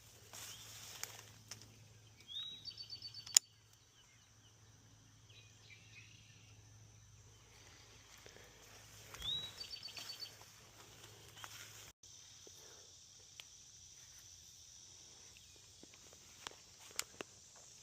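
Faint outdoor ambience with a small songbird singing twice, each time a quick rising note followed by a rapid trill. A single sharp click comes just after the first song, and a steady high insect buzz runs through the second half, with a few light ticks near the end.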